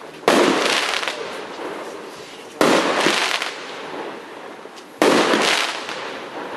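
TXB673 Triplex firework firing three shots about two and a half seconds apart. Each shot is a sudden bang followed by crackling that fades over a second or two.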